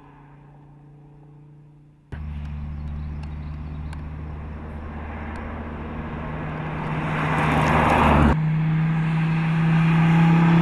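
SRT Viper's V10 engine running at steady revs as the car drives through the corners: faint at first, then much louder after a sudden cut about two seconds in, growing louder as the car comes closer, with another abrupt change to a steadier tone about eight seconds in.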